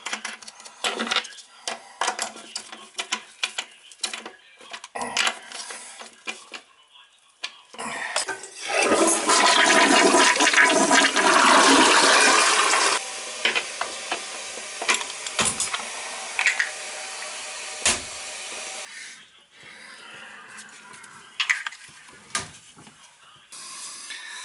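Handling clicks and knocks, then a newly installed toilet flushing with a loud rush of water for about five seconds. The tank then refills with a quieter steady hiss for about six seconds before the fill valve shuts off, followed by a few knocks. The refill leaves the tank water line too high, set by the fill-valve float.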